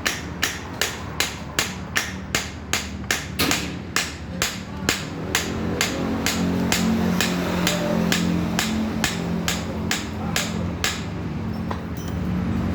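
Repeated sharp metal knocks, about three a second, as a motorcycle front fork is knocked apart to drive out its oil seal. The knocking stops about eleven seconds in.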